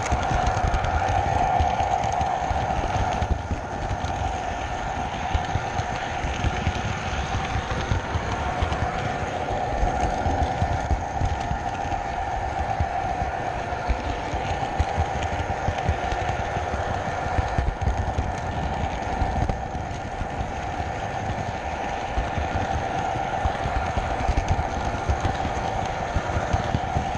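Model train running along its track, heard from a camera riding on the train: a steady motor whine over a rumble of wheels on the rails, with many small clicks.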